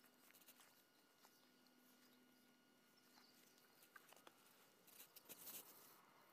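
Near silence: faint outdoor ambience with a few soft scattered clicks and rustles, and a brief cluster of them about five seconds in.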